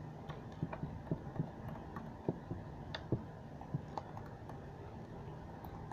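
Slime being squeezed and stretched by hand, making irregular small clicks and pops.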